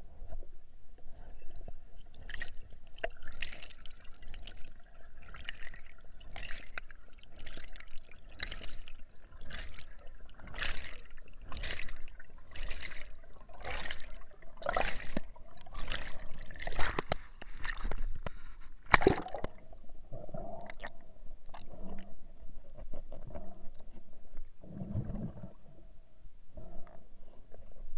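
Underwater bubbling and gurgling of air bubbles, heard through a waterproof camera housing. It comes in sharp bursts about once a second that grow louder and then stop about two-thirds of the way through, leaving a softer water sound with one low thump.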